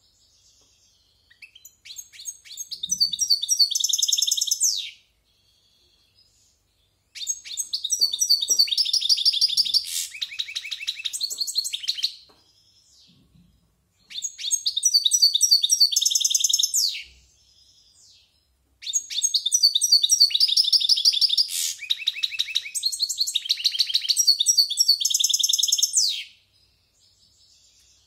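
A year-old European goldfinch going over its varied song: four bursts of rapid, high twittering with short pauses between them, the last burst the longest.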